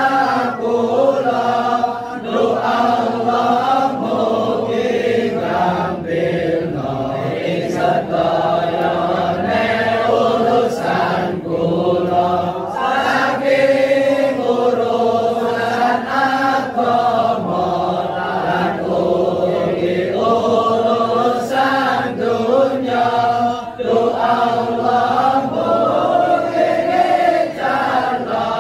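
A group of voices chanting Islamic devotional words together in a slow, melodic chant, in long phrases with brief breaks between them.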